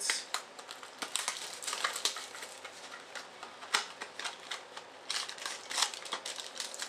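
Wrapper of a baseball card pack crinkling and crackling as it is torn open by hand, in quick irregular crackles that grow denser about five seconds in.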